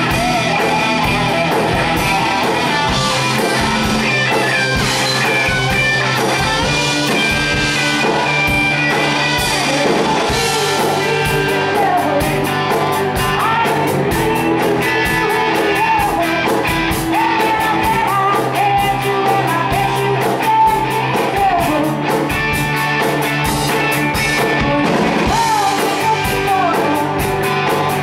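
Live rock band playing: electric guitar over bass and drums with a steady beat, and a woman singing lead.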